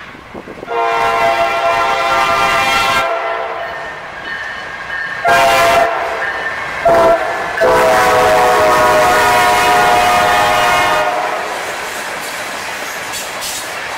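Air horn of a Norfolk Southern GE locomotive sounding a long blast, two shorter ones, then a long one of about three seconds. Underneath, the steady rumble and clatter of the locomotives and grain hopper cars rolling past goes on after the horn stops.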